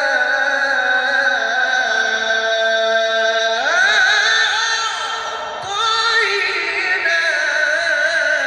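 A man's voice reciting the Quran in the melodic qari style into a microphone, holding long ornamented notes with a wavering vibrato. About three and a half seconds in the voice sweeps up to a higher pitch and back down, breaks off briefly, then carries on with held notes.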